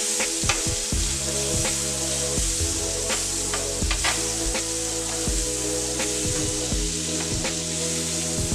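Food sizzling in a hot pan, with frequent light clicks and scrapes of a utensil, over background music with steady bass notes.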